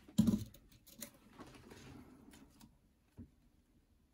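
Workbench handling noise from a soldering iron and solder wire being brought to a potentiometer casing on a guitar control plate: a bump a fraction of a second in, light clicks and rustling, and a soft knock about three seconds in.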